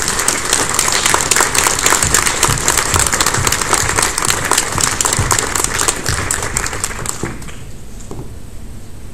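Audience applauding, a dense clatter of many hands clapping that dies away about seven seconds in.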